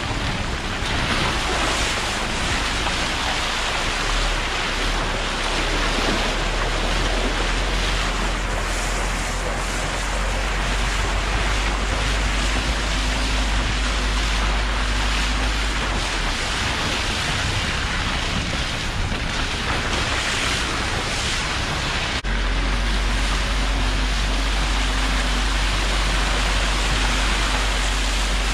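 Steady rush of wind and road noise on a microphone mounted on the outside of a slowly moving 4x4: tyres rolling over wet gravel and mud under a low engine rumble. The sound shifts abruptly about three-quarters of the way through.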